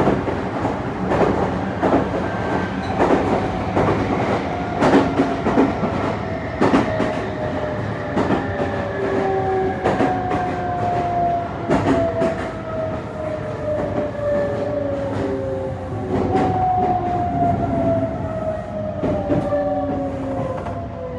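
Meitetsu 3500 series train's Toyo GTO-VVVF traction inverter whining inside the car, in rows of tones that fall slowly in pitch, jump back up twice and fall again, as the train slows. Under it run the steady rumble of the running gear and irregular clicks of the wheels over rail joints.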